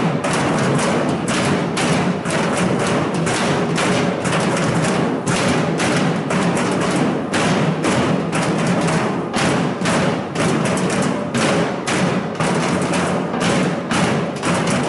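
A crowd of protesters banging and knocking at once, a dense, uneven clatter of knocks and thuds with no pause.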